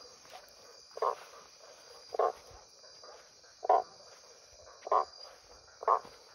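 Night insect chorus of crickets, a steady high trill, with short mid-pitched pulses about once a second standing out above it.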